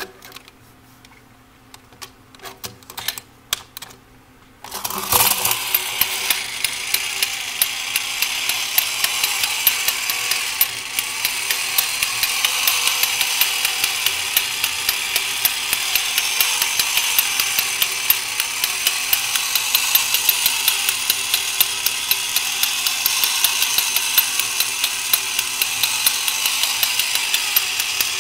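A few separate clicks, then about five seconds in a 1970s Horikawa Piston Engine Robot, a battery-operated toy robot, starts up: its small electric motor and plastic gear train run with a steady whirr and fast, even clicking.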